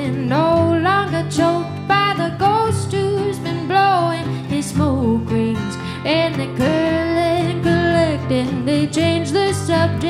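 A woman singing a slow folk song, accompanied by two acoustic guitars.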